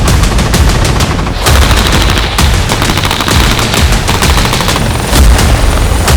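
Rapid automatic gunfire: shots in quick succession, loud throughout.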